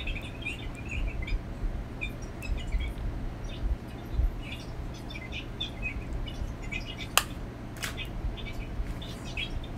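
A small bird chirping over and over in short high notes. A sharp click comes about seven seconds in, with a second one just under a second later.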